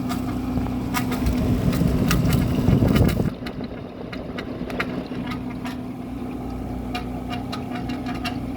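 GE 6,000 BTU wall air conditioner running: a steady hum from the compressor and fan, with scattered clicks. A louder rushing noise swells about a second in and cuts off suddenly a little after three seconds. The unit has a freezing compressor accumulator and a fan that spits water.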